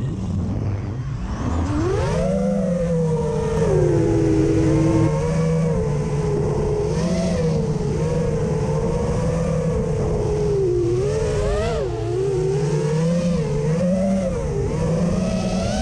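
FPV racing quadcopter's brushless motors whining, heard from the onboard camera. The pitch drops low in the first second or so as the throttle is cut, climbs back, then holds a steady whine that wavers up and down with the throttle.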